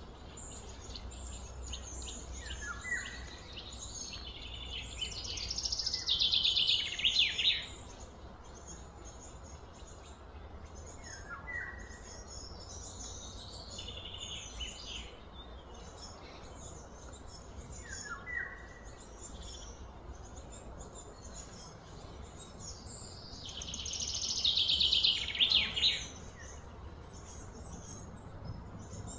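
Birds and insects calling outdoors. A short falling chirp repeats about every seven seconds. Twice, a loud, rapid buzzy trill swells over two or three seconds and then stops suddenly.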